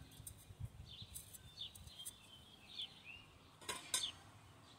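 Stainless steel stovepipe sections clinking twice in quick succession near the end as they are handled, with faint bird chirps earlier.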